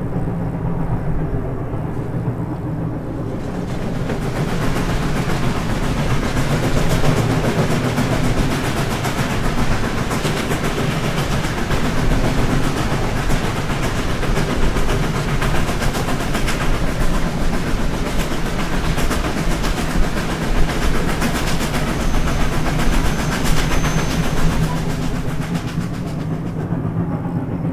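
Reading & Northern #425 steam locomotive working its train, the exhaust and running gear making a loud, steady racket that swells about three to four seconds in and eases slightly near the end.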